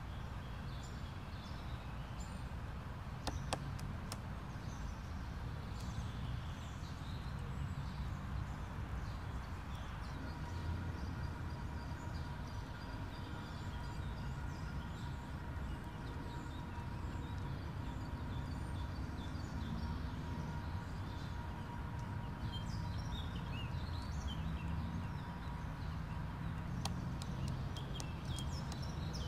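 Black woodpecker striking its bill into a tree trunk: a few sharp knocks about three seconds in and a quick cluster near the end, over a steady low outdoor rumble with small birds chirping.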